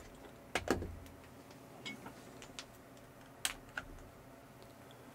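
Faint clicks and light knocks of a power cable's plug and a power bank being handled and fitted together. The two loudest come close together about half a second in, with a dull thud, and a few smaller clicks follow.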